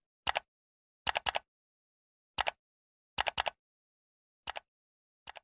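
Mouse-click sound effects from an animated subscribe button, coming in quick pairs and triples about once a second, with dead silence between them.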